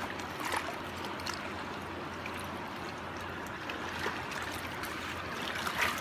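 Water swishing around in a gold pan as it is swirled, with a few small splashes and ticks, over the steady rush of running water.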